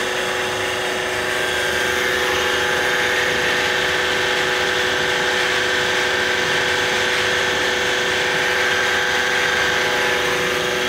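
Hydraulic power pack of a Terex tower crane's telescoping cage running steadily during the climb: a continuous machine hum with a steady high whine.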